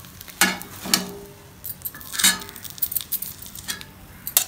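Steel spatula scraping and clinking against a flat frying pan and a plate as a cooked omelette is lifted off the pan and slid onto the plate: a string of sharp clinks and short scrapes, the loudest three in the first half and one more near the end.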